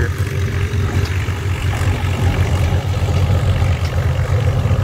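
Antique farm tractor engine running hard and steady under load as it pulls the weight sled down the track, with a deep, rapid pulsing thrum.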